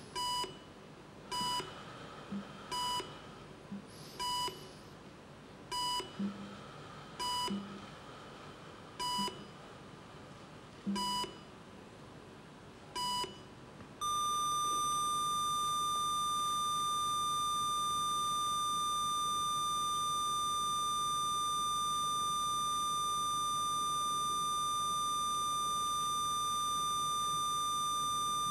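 Heart-rate monitor beeping once per heartbeat, the beeps drawing further apart from about a second and a quarter to about two seconds as the pulse slows. About halfway through they give way to one continuous unbroken tone: the flatline alarm of a heart that has stopped.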